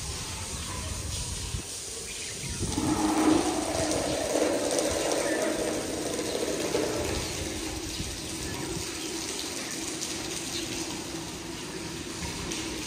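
Water running steadily, coming in about two and a half seconds in.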